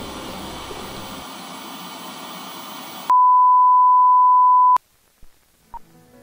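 Static hiss for about three seconds, then a loud, steady colour-bars test tone that holds one pitch for about a second and a half and cuts off suddenly. Near silence follows, with a couple of faint blips.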